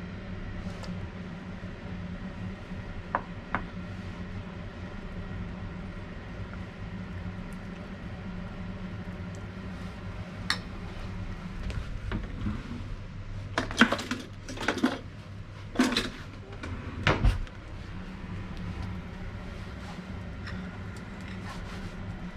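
Kitchenware being handled: a few light clinks, then a run of louder clattering knocks past the middle, over a steady low hum.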